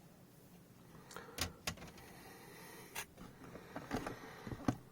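Hard plastic graded-card slabs being handled and set down, giving a few faint, light clicks and clacks over a low hiss.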